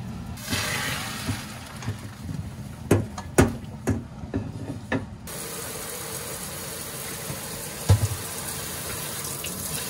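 Stainless steel pot knocking against the sink several times as hot boiled bracken fern is drained into a colander. From about five seconds in a kitchen tap runs steadily for the cold-water rinse, with one more sharp knock near eight seconds.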